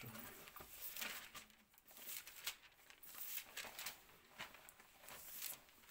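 Pages of a Bible being leafed through: faint, irregular rustles and flicks of thin paper.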